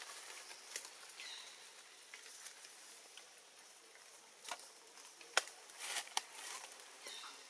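Leaves rustling with scattered sharp clicks as a long-tailed macaque tugs at foliage and feeds on leaves; the loudest clicks come about five and six seconds in.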